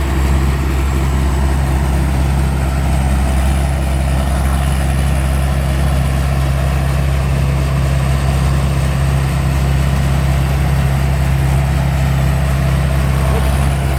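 Chao Chang WiFi 2024 rice combine harvester running steadily while harvesting, a constant engine drone with a faint high whine above it.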